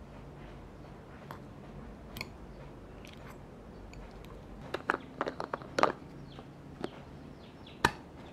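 A metal fork mashing hard-boiled eggs in a glass bowl: soft squishing with scattered taps and clicks of metal on glass, a quick run of louder clicks a little past the middle and one sharp click near the end.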